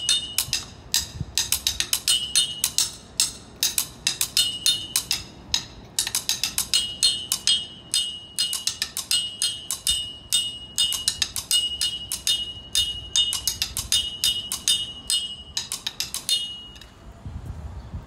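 Drumstick playing a fast rhythmic groove on a metal standpipe: sharp clicking strikes, many of them ringing with a bright metallic note at one pitch. The playing stops near the end.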